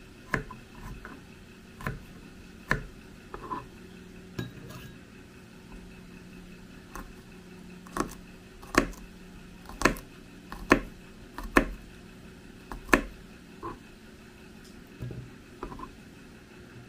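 Kitchen knife cutting peeled garlic cloves on a plastic cutting board: the blade knocks sharply on the board a dozen or more times at irregular intervals.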